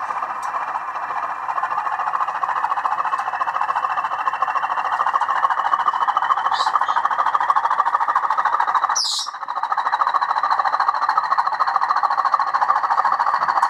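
Sound-fitted Bachmann Class 20 model's decoder playing the diesel locomotive's engine running, through its upgraded twin speaker, with a faint whine rising slowly in pitch as it powers up to move off. A brief high chirp comes about nine seconds in.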